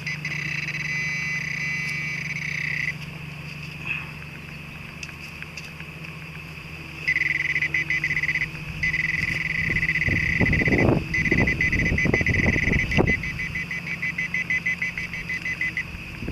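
Cicadas buzzing in a high, steady drone that stops and starts several times and breaks into a rapid pulsing rhythm near the end, over a steady low hum. A few short rough handling noises come through around the middle.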